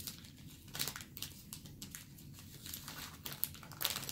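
Hands swapping precision screwdrivers: scattered light clicks and crinkly rustling as the tools are picked up and handled, with a few sharper clicks about a second in and near the end.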